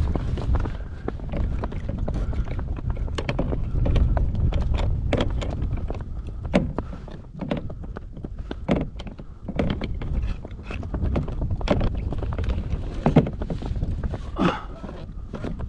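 Wind buffeting the microphone, with irregular knocks and clicks from gear being handled on a kayak.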